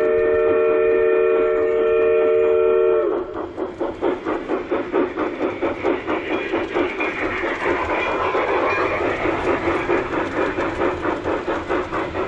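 G-scale model steam locomotive's onboard sound effects: a steam-whistle chord held for about three seconds, then a steady, fast chuffing as the engine runs along the track.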